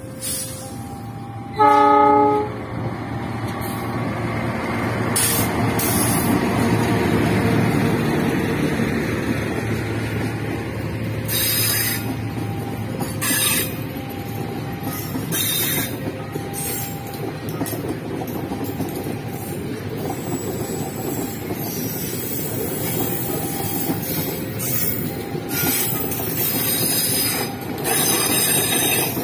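A diesel-hauled passenger train passing close by. The locomotive sounds its horn once, briefly, about two seconds in. Then comes a steady rumble of wheels on rail, with clicks over the rail joints as the coaches go by.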